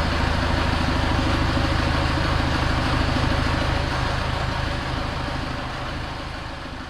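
Case 580SK backhoe's diesel engine running steadily with an even firing beat, then dying away over the last few seconds.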